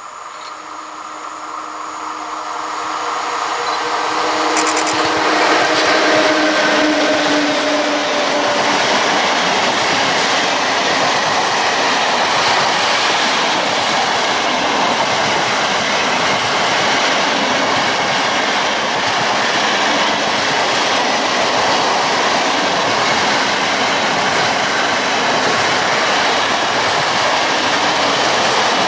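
A freight train approaches and passes close by, growing louder over the first several seconds. A humming locomotive tone fades out early, and then the steady rolling noise of the wagons on the rails holds for the rest of the time.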